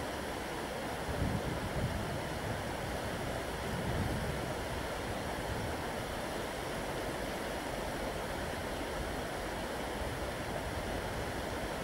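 Shallow river water rushing over a riffle, a steady wash, with low wind rumbles on the microphone about a second in and again around four seconds.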